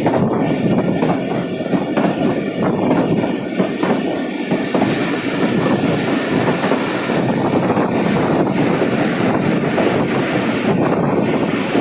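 Moving passenger train heard from inside a coach at an open window: a steady rumble of wheels running on the track, with rail-joint clicks in the first half.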